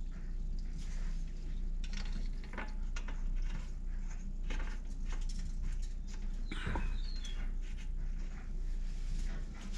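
Scattered light clicks and knocks, with a brief busier cluster about two-thirds of the way through, over a steady low hum.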